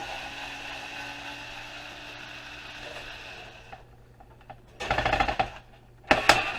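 A small electric driver runs steadily for about four seconds as the heater's switch is taken out, then metal parts clatter and knock in two loud bursts.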